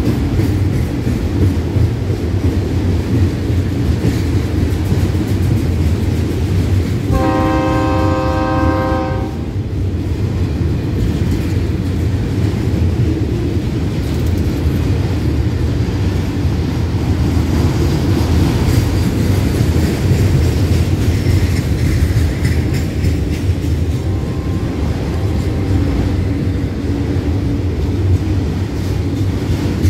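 Autorack freight cars rolling past close by: a steady, loud, low noise of steel wheels running on the rails. About seven seconds in, a horn sounds a chord for about two and a half seconds.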